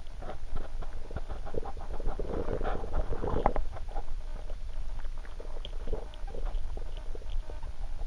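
Underwater noise heard through a camera submerged in a gravel-bed river: a low rumble of moving water with scattered clicks and knocks, denser and louder from about two to three and a half seconds in.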